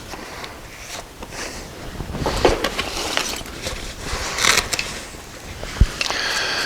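Handling noise from a car's on-board tool kit being packed and unpacked: rustling, scraping and light knocks, with one low thump about six seconds in and a short rasp near the end.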